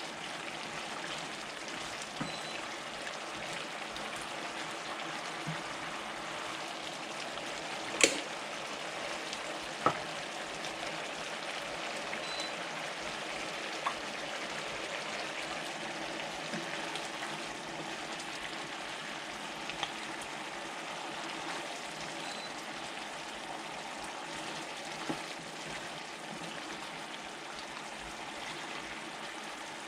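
Squid adobo cooking in a pan, the sauce bubbling and sizzling steadily. A few sharp clinks of a utensil against the pan sound over it, the loudest two about a third of the way in.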